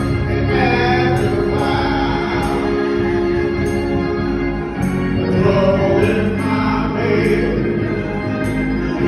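Gospel hymn singing: a man's voice with other voices sustaining long sung notes, with a light high tap about once a second.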